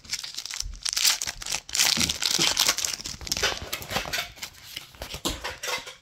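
Foil Pokémon card booster pack wrapper crinkling and being torn open, a dense irregular crackle that goes on with small pauses.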